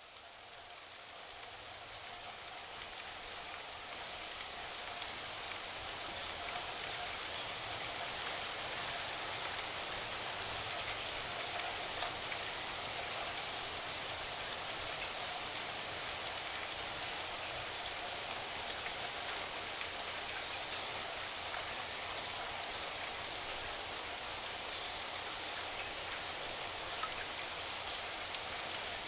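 Steady rain falling, fading in over the first few seconds and then holding at an even level.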